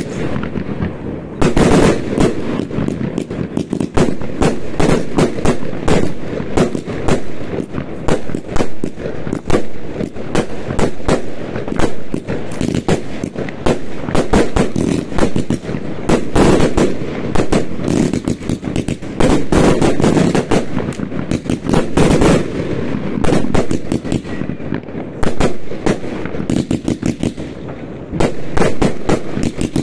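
New Year's fireworks going off in a dense, continuous barrage: rapid-fire cracks and bangs several per second with booming reports.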